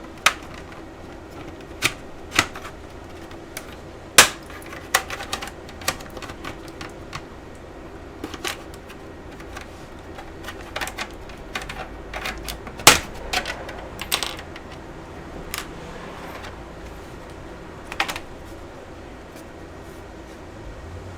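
Irregular sharp plastic clicks and snaps from a laptop's plastic bottom cover being pried and worked loose, a few of them loud.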